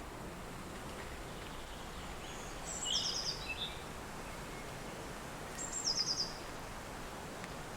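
Steady wind with a songbird singing twice: each time a short very high note, then a quick trill of about five notes.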